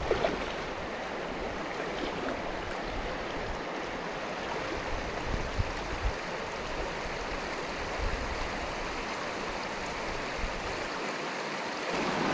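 River water rushing steadily over rocks at a shallow crossing.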